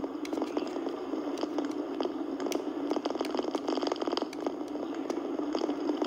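Steady road noise of a moving vehicle with a constant hum and irregular light rattling clicks.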